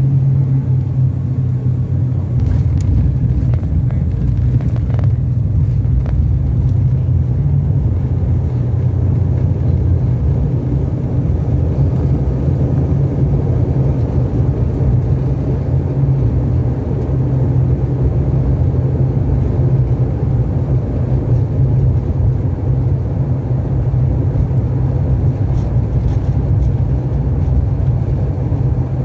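Low, steady cabin drone of an ATR 42-600's Pratt & Whitney PW127M turboprop engines and propellers, heard inside the cabin at a window seat beside the propeller as the aircraft rolls on the ground after landing.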